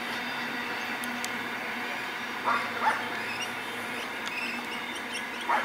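A dog barking: two barks about half a second apart, then one more near the end, over the steady distant rumble of a long container freight train moving away.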